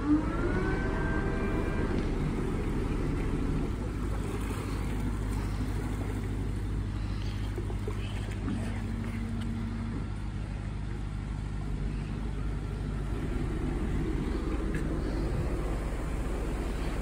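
Excursion boat's engine running with a steady low hum while the boat moves in the lock. A rising whine with several tones comes in at the start and levels off after about two seconds.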